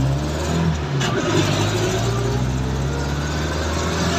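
Jeepney engine running, heard from inside the passenger cabin over a steady rushing road noise; its pitch shifts about a second in, then holds steady.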